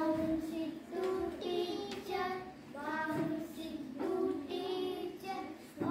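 Children singing an English action rhyme in a sing-song chant, in short phrases about a second long.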